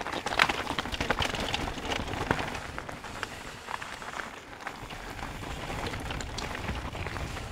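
Mountain bike rolling fast down a rough, hand-cut dirt trail: tyres crunching over dirt and rocks with a constant patter of clicks and rattles from the bike.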